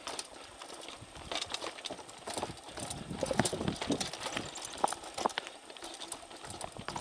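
Mountain bikes rolling over a trail of stone slabs: an irregular clatter of knocks and rattles as tyres drop between the rock slabs and the bikes jolt, busiest and loudest a little past the middle.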